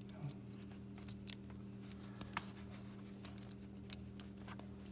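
Small scattered metallic clicks of Glock trigger bar and trigger-housing parts being handled and fitted together in the fingers, over a steady low hum.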